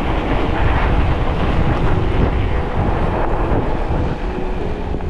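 Wind buffeting the microphone: a loud, steady, low rumbling noise, with faint music tones coming in near the end.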